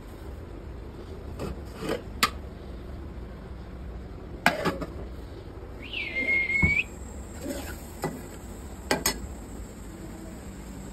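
Aluminium cookware and a steel spatula knocking and clinking a handful of times as pots and lid are handled on a gas stove, with a short high squeal about six seconds in.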